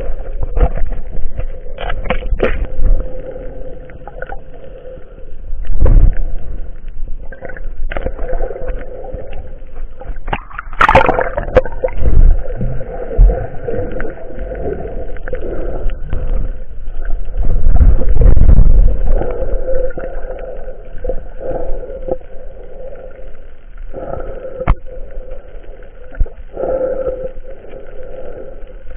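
Muffled water sloshing and rushing around a snorkeler's action camera as he swims and dives underwater, with louder rushes of water and bubbles about six, eleven and eighteen seconds in.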